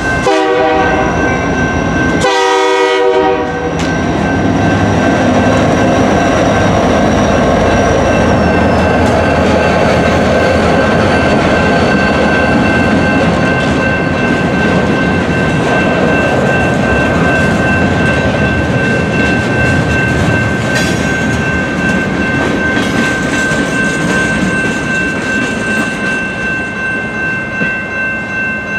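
Freight train locomotive horn sounding two short blasts in the first few seconds, then the freight cars rumbling and clattering over the crossing. Under it all the crossing's General Signals Type 2 electronic bells ring steadily.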